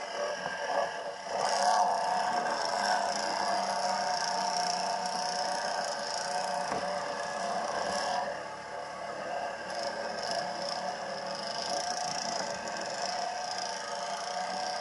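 ATV engine running steadily under load while the quad drives through muddy water, with water splashing around the machine.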